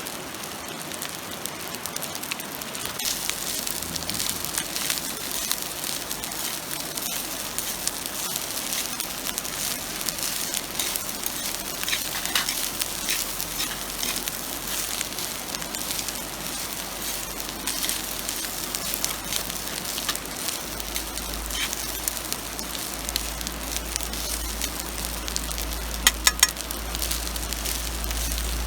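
Food frying in an oiled pan over a wood fire: a steady sizzle with frequent small crackles, and three sharp pops about 26 seconds in.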